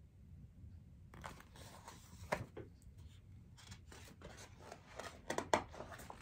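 Paper pages of a picture book rustling as the book is handled and a page is turned, with a few sharper clicks about two and a half and five and a half seconds in.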